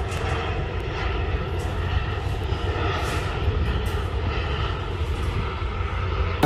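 Jet airliner flying overhead, its engines a deep, steady drone.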